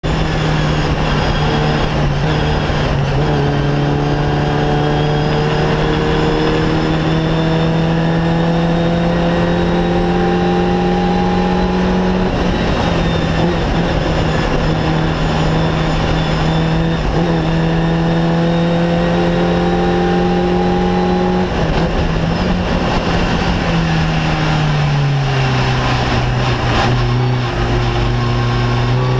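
Fun Cup race car's engine heard from inside the cockpit, pulling hard through the gears. The revs climb steadily in long pulls, broken by three upshifts, then fall near the end as the car slows and changes down.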